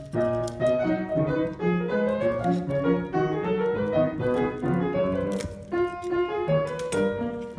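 Piano playing a melody over chords, the notes and chords changing every fraction of a second.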